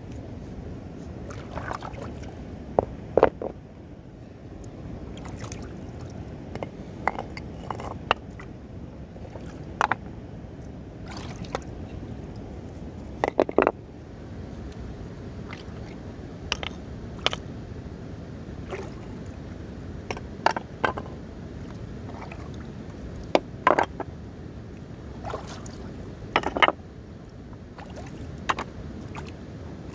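Flat stones knocking and clacking against each other as they are handled and set down in a shallow rock pool, in irregular sharp knocks, two of them louder about 3 and 13 seconds in. Behind them, a steady rush of running water.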